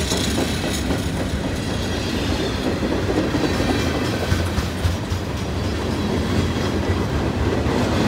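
Freight cars of a passing train rolling by at speed: a steady rumble of steel wheels on the rails, with the clickety-clack of wheels over rail joints.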